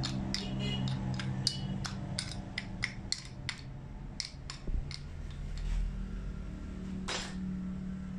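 Light metallic clicks and taps of a bent steel rod and small parts against a cut-open diesel injection pump's metal housing, a quick run of them in the first few seconds and fewer after, with a short scrape near the end. A steady low hum runs underneath.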